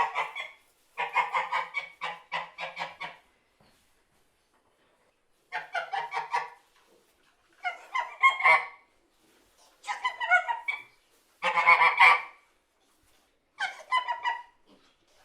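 Goose honking in repeated bursts of quick, harsh honks, each burst about a second long, with a longer pause after the first two.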